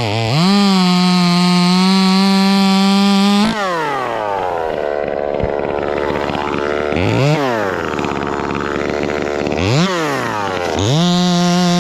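Echo 2511T top-handle two-stroke chainsaw, ported, running at full throttle. About three and a half seconds in the throttle is released and it falls to idle. It is blipped up and down twice, then opened back up to full throttle near the end.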